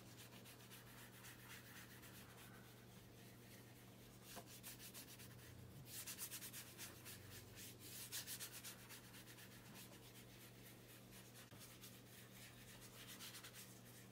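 Faint rubbing of gloved fingertips on a shoe's leather upper, working conditioner cream in with quick back-and-forth strokes. It grows a little louder for a few seconds around the middle and again near the end.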